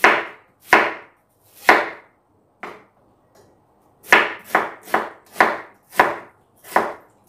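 Kitchen knife slicing an onion, each cut ending in a sharp knock on the cutting board: a few cuts, a pause of about a second and a half, then a quicker run of about six cuts.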